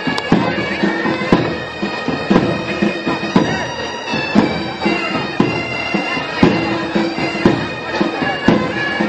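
Military pipe band playing a slow funeral march: bagpipes over a steady drone, with a drum beat about once a second.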